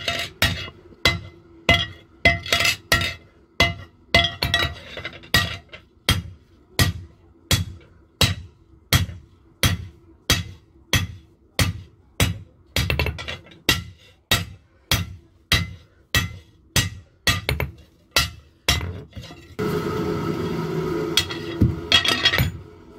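Hand hammer striking a red-hot steel hoe blade on an anvil in a steady rhythm of about two blows a second, many with a metallic ring. Near the end a steady rushing noise runs under the blows for a few seconds.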